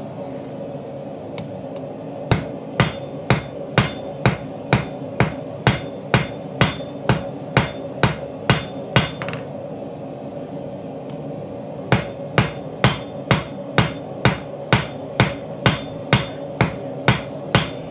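Hand hammer, likely a cross-peen, striking a red-hot Damascus steel bar on an anvil at about two blows a second, drawing out the width of the knife blank. The blows come in two runs separated by a pause of about three seconds, over a steady low hum.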